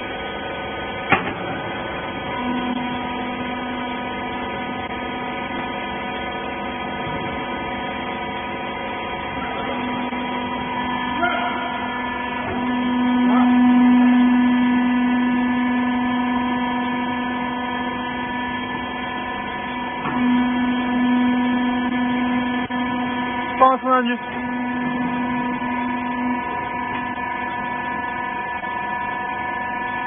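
Wiper rag baler's hydraulic power unit running with a steady electric hum. It swells louder for a few seconds a little before the middle as the baler works under load. A couple of sharp metal knocks come about a second in and again near the end.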